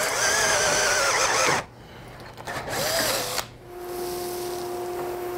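Cordless drill boring an access hole through melamine-faced particle board, its motor whine wavering under load and stopping suddenly about a second and a half in. After a short pause a vacuum starts up and runs with a steady hum as it picks up the chips.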